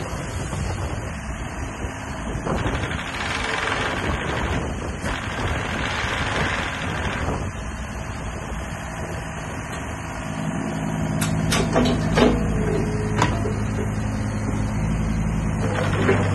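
Takeuchi TB228 mini excavator's engine and hydraulics running as the arm and bucket move, with hissing swells of hydraulic noise. About ten seconds in the engine settles into a louder, steadier drone as the machine slews and begins to track, with a few sharp knocks.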